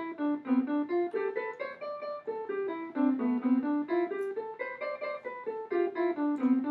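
Background music: a quick picked melody of short notes, about three or four a second.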